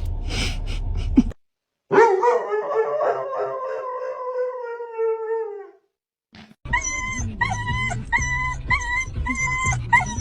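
About a second of noisy background that cuts off, then a dog howling: one long call of about four seconds, sliding slowly down in pitch. After a short pause comes a run of about seven short yips, two a second.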